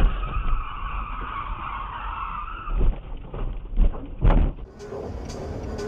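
Car tyres skidding with a screech for about two and a half seconds, then three thuds as the car jolts off the road into the verge.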